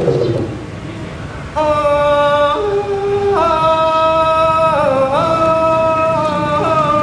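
A drum passage dies away in the first second and a half, then a man sings long, held notes in a Thai vocal style, sliding from one pitch to the next.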